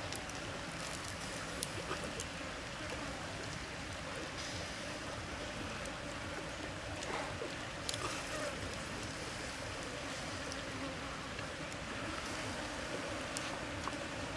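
Bacon and skewered mushrooms sizzling on a wire grill over a wood fire: a steady hiss with a few sharp crackles from the burning sticks.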